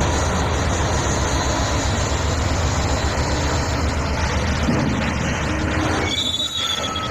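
P&H 2800XPC electric rope mining shovel and a giant mining haul truck working together while the shovel loads rock into the truck's bed: a loud, steady, pulsing low machinery rumble under a rough clatter of machinery and rock. About six seconds in the noise dips briefly and a short high tone sounds.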